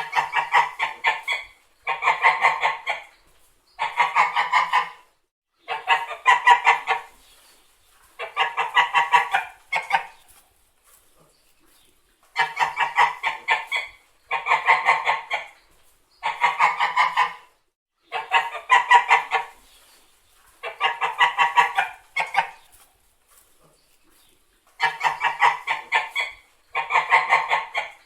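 Domestic white geese honking in repeated bouts, each a quick run of honks lasting about a second and a half, one bout every two seconds or so, with two longer pauses.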